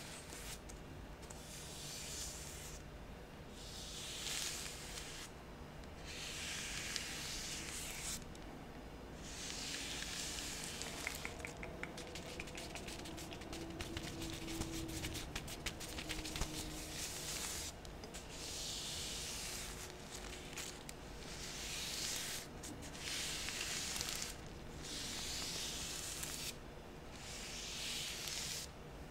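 Soft plastic being crinkled and rubbed close to the microphone in repeated strokes of about a second each, with a stretch of fine, rapid crackling in the middle.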